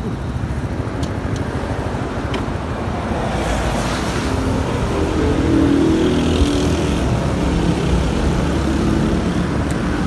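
Motorcycle riding noise: the engine running with road and wind rumble on a handlebar-mounted microphone, growing a little louder a few seconds in, with a brief hiss of extra noise around then.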